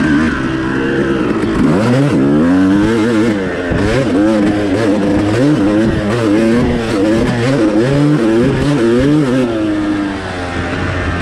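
2003 Suzuki RM250's 250cc single-cylinder two-stroke engine under riding, its pitch rising and falling again and again as the throttle is worked, from about two seconds in until near the end.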